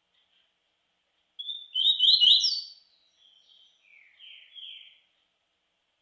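Caged songbird singing one short phrase: a loud run of quick, rising notes starts about a second and a half in, then trails off into softer falling notes.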